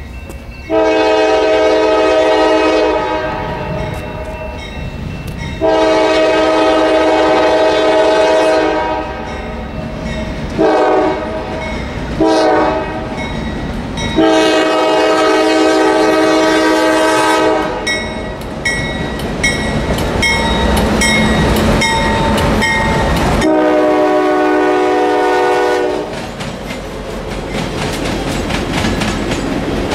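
Norfolk Southern freight locomotive's multi-chime air horn sounding a series of long and short blasts as the train approaches a crossing. Near the end the passing freight cars rumble by, with the clickety-clack of wheels over the rail joints.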